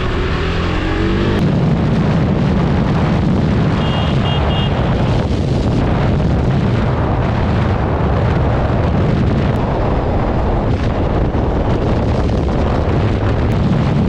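Motorcycle accelerating hard on a speed run, its engine pitch climbing in the first second or so and then a steady loud rush of engine and wind buffeting the microphone at high speed. A few brief high beeps sound about four seconds in.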